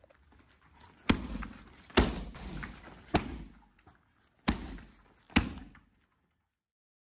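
Kicks smacking against a handheld taekwondo speed target (kick paddle): five sharp slaps, roughly a second apart.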